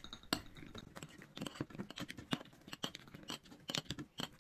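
Metal spoon clicking and scraping against a glass jar as cucumber pickle is pressed down into it, with a scoop or two against the bowl: an irregular string of sharp clicks and short scrapes.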